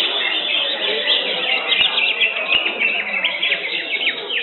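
Many caged green leafbirds (cucak hijau) singing at once: a dense, unbroken run of fast chirps and quick falling whistles over a low background murmur.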